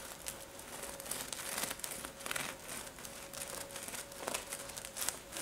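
Serrated bread knife sawing through the crisp, golden crust of a baked sesame bread roll: a run of crackling crunches, densest about one to two seconds in, with a few sharper cracks near the end.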